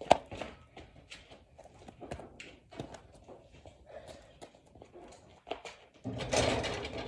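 A sharp thud just after the start, light scattered taps and footsteps on concrete, then about six seconds in a louder, noisy clatter lasting about a second as a player jumps up and hits the rim of a portable basketball hoop.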